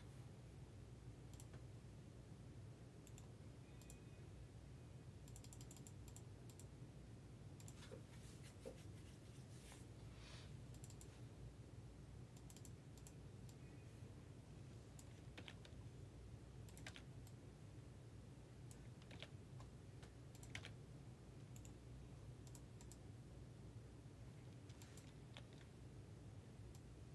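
Faint, irregular clicks of typing on a computer keyboard, over a low steady hum.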